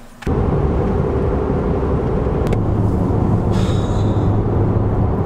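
Steady road and engine noise inside the cab of a moving pickup truck, with a low hum under it. It starts abruptly a moment in.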